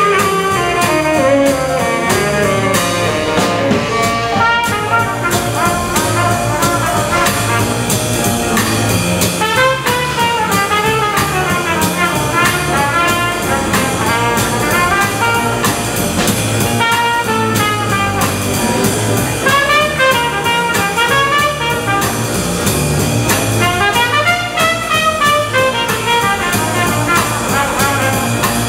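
Small jazz band playing live: a trumpet leads the melody, with saxophone and trombone, over piano and drums.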